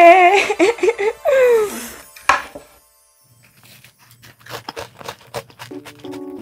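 Crunching bites into a warm, crisp-crusted butterscotch cookie topped with ice cream, a quick run of crackly crunches in the back half. A drawn-out, sing-song voice is the loudest sound at the start, and light background music comes in near the end.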